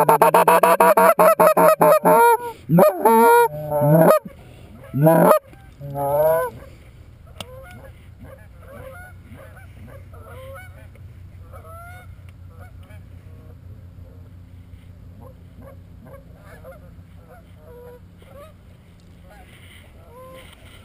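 Geese honking: loud, fast honks and clucks close by for the first six seconds or so, then faint scattered honks from geese farther off.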